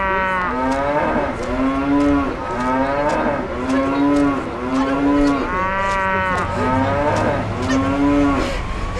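A rapid string of about ten short cow moos, one after another, each rising and falling in pitch, standing in for spoken lines.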